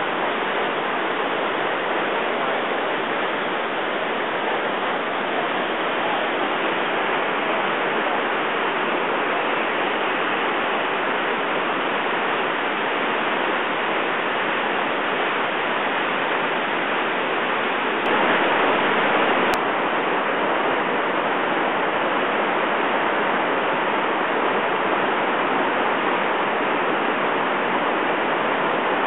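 Steady rushing roar of a waterfall and whitewater rapids pouring through a canyon, briefly a little louder for a second or two about two-thirds of the way through.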